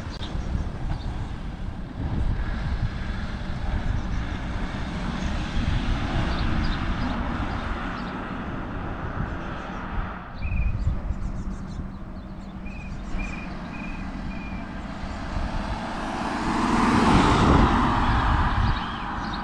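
BMW 330d's 3.0-litre straight-six diesel engine running as the convertible drives on the road, growing louder and peaking as it passes close by about 17 seconds in, over a steady low rumble.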